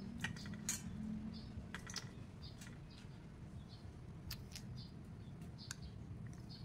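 Small birds chirping faintly in short, high, scattered calls, with light clicks in between.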